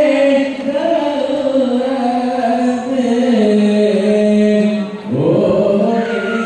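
Men's voices chanting in unison in long, slowly gliding held notes, breaking off briefly about five seconds in and resuming on a rising note.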